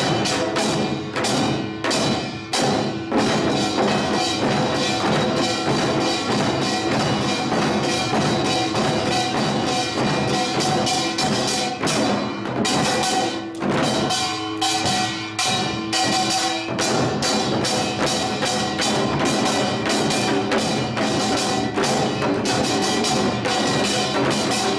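Samul nori percussion ensemble playing: kkwaenggwari small gong, janggu hourglass drum and buk barrel drum striking in a fast, dense rhythm over the steady ringing of the jing gong.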